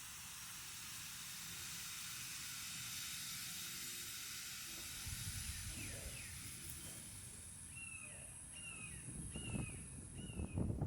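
Faint steady outdoor hiss, with a bird calling four short falling chirps near the end. Wind starts buffeting the microphone in the last second or so.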